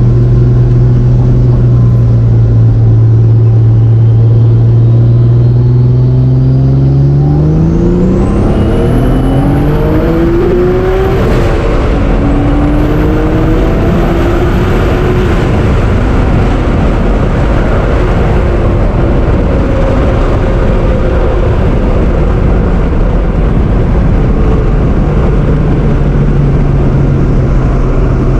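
Turbocharged Honda NSX's 3.0 L C30A V6 holding a steady note, then accelerating hard through two gears about seven seconds in, with a thin turbo whistle rising alongside the engine each time. After the second pull comes a long stretch of broad rushing noise without a clear engine note, and the steady engine note returns near the end.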